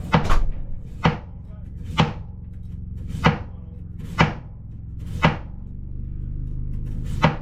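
Kitchen knife slicing raw potatoes thin on a cutting board: about seven sharp knocks of the blade on the board, roughly one a second, with a longer gap near the end, over a steady low hum.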